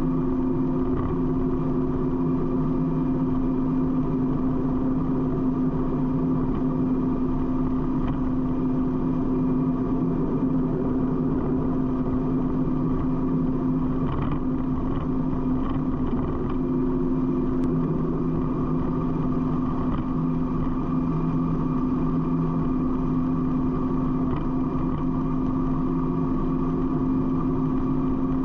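Harley-Davidson V-twin motorcycle engine running at a steady highway cruise, with wind and road noise rushing past the fairing.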